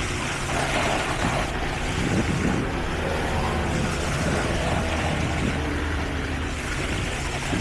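Engines of heavy road-construction machinery running steadily, a low continuous engine drone with some uneven mechanical noise over it.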